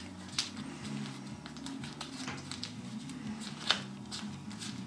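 Masking tape crinkling and crackling as fingers fold and press it around a puppy's ear, with scattered small clicks, the sharpest a little before four seconds in, over a low steady hum.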